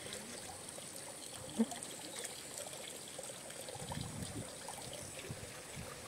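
Faint steady trickle of water running in a ditch, with one short click about a second and a half in and a few low rumbles around four seconds.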